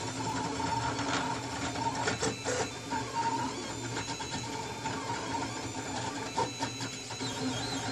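Printrbot Simple Metal 3D printer at work: its stepper motors whine in shifting tones as the print head moves through short strokes over small parts.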